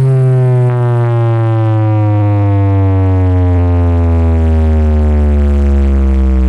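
A large carnival sound system stacked with subwoofers playing a loud, deep synthesized bass tone with many overtones that slides slowly and steadily downward in pitch, as in a drop of an electronic dance track.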